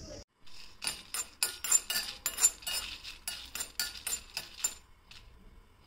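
Metal kitchen utensils clinking, like a spoon knocking against a metal vessel while the coconut masala is prepared. It is a quick run of sharp, ringing clinks, about four a second, that stops near the end.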